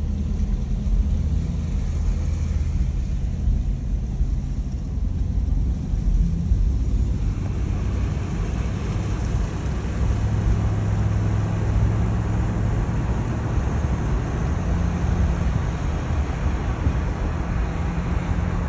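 Pickup truck driving, heard from inside the cab: a steady engine hum under road and tyre noise. The road noise grows louder about seven seconds in.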